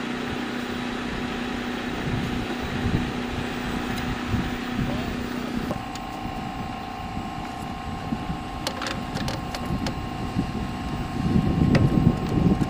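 A steady machine hum, jumping to a higher pitch about six seconds in, over irregular low noise that grows louder near the end.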